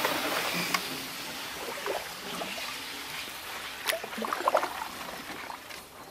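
Canoe paddling: water trickling and splashing off the paddle, with a few light knocks about four seconds in.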